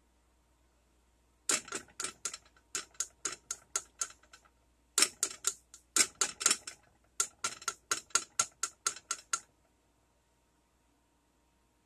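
Yellow plastic measuring spoon clicking and tapping over the saucepan in three quick runs of sharp taps, about three a second, while molasses is measured out.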